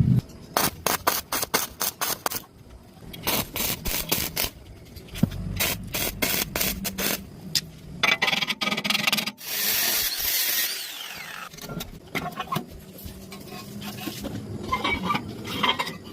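Hand work on metal: a run of sharp taps and scraping strokes, then a loud hissing spell about eight seconds in that ends with a falling whine, followed by more scattered scraping.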